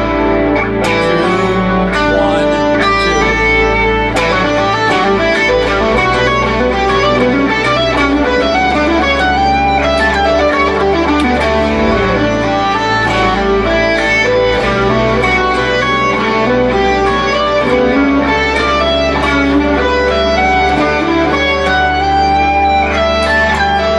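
Electric guitar playing melodic single-note lines built from 2-1-2 note groupings over an A7 chord, many quick notes in succession, with a steady low bass tone underneath.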